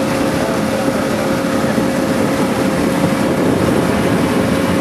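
Motorboat engine running steadily at cruising speed, with water rushing past the hull and wind over the boat.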